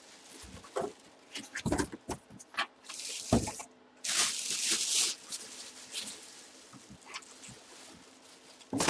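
Rustling and crinkling of plastic and cardboard packaging, with small knocks and clicks, as a boxed football helmet is handled and unwrapped. The louder rustles come in bursts about three seconds in, around four to five seconds, and near the end.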